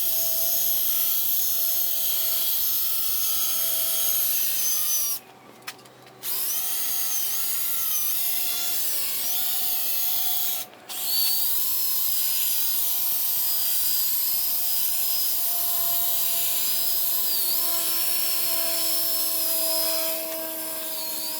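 Electric drill spinning a compound-soaked polishing pad over a plastic headlight lens, a steady whine whose pitch wavers as the trigger and pressure change. It stops for about a second roughly five seconds in, and again briefly near eleven seconds.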